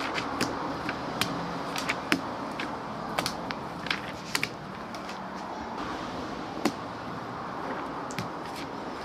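Hands spreading and pressing clay paste onto paper sheets: a dozen or so sharp, irregular taps and clicks over a steady background noise.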